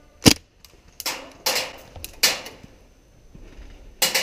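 Airsoft guns firing single shots, about five sharp cracks in all: a short one just after the start and another near the end, with three in between at half-second gaps that each trail off more slowly.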